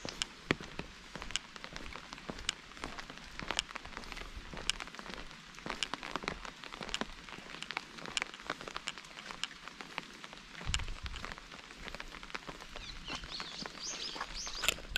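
Rain falling, individual raindrops striking close by as irregular sharp ticks over a steady patter.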